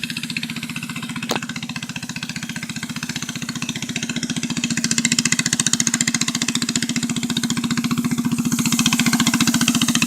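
The small 7 hp engine of a homemade three-wheel bike running at about idle speed as it is ridden, with an even, rapid beat that grows louder about halfway through.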